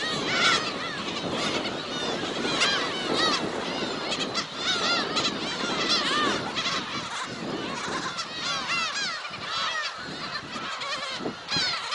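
A large flock of black-tailed gulls calling at once, a dense chorus of overlapping short cries with no break.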